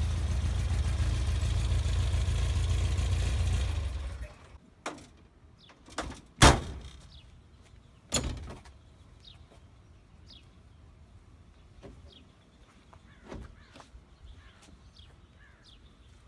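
1966 Volkswagen Type 2 panel van's air-cooled flat-four engine running, then shutting off about four seconds in. A few sharp metal clunks and latch clicks follow as the side cargo doors are unlatched and swung open, the loudest about six and a half seconds in. Faint bird chirps after that.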